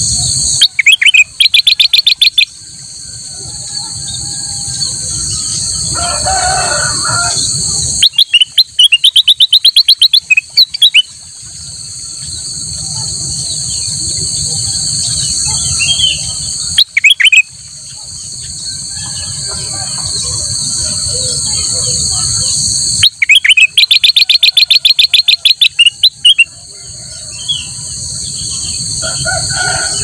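Ruby-throated bulbul singing in four loud bursts of rapid chattering notes, one of them short, over a steady high drone of insects.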